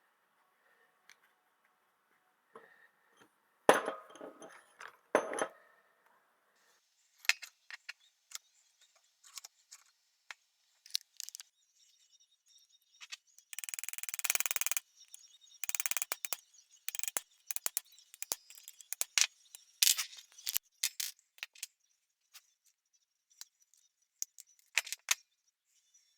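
Small metal tools and pocket-knife parts clicking, tapping and clinking in irregular short knocks while the pin holding the knife's loop is being worked out, with a scraping sound lasting about a second partway through.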